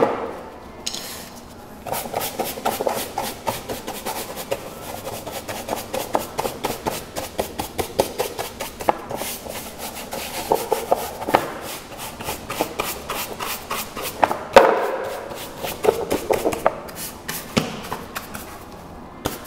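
Small hog-bristle brush scrubbing a wet plastic engine cover in quick back-and-forth strokes, with a couple of louder knocks near the end as the cover is handled.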